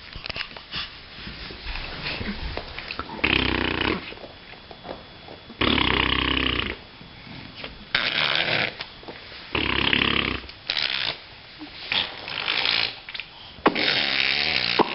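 A baby under eight months old making silly vocal noises: about six breathy bursts, each lasting around a second, with short pauses between.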